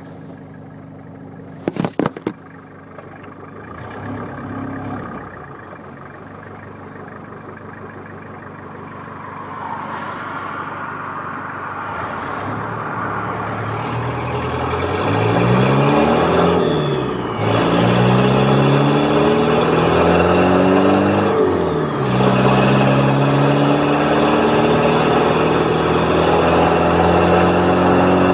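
Turbocharged Toyota 4Runner engine idling, then accelerating hard through the gears: the engine note climbs and drops back at each upshift, with a rising rush and whistle from the turbo. Two sharp clicks come about two seconds in.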